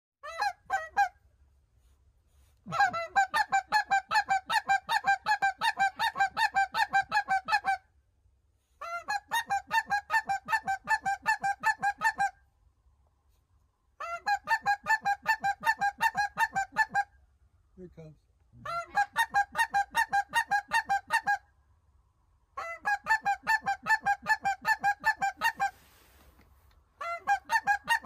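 Snow goose calling: rapid, evenly spaced honks, about six a second, in runs of a few seconds broken by short pauses.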